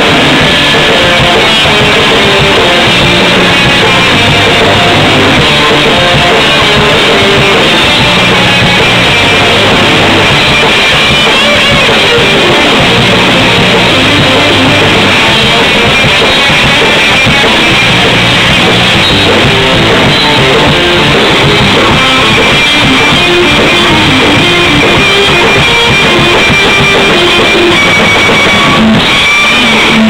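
Live rock band playing loud, with electric guitars, bass guitar and a drum kit.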